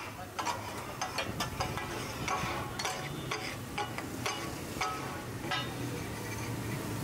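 Steel spatula-blades clanking and scraping on a flat iron griddle as katakat offal is chopped and stirred: irregular metallic clanks, about two or three a second, some with a short ring.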